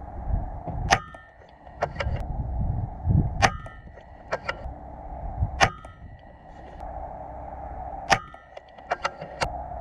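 Air rifle firing slugs in steady succession: four sharp shots about two and a half seconds apart, each with a brief ringing tone after it, and lighter clicks of the action being cycled between shots.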